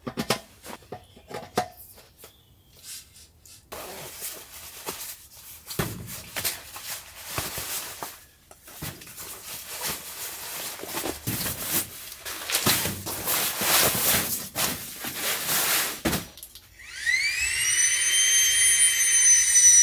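Rustling and scraping of bag and fabric as gear is unpacked and a sleeping mat is laid out. About three seconds before the end, a small battery-powered air pump starts inflating the sleeping mat with a rising whine, then runs on with its pitch sagging a little; its battery is low.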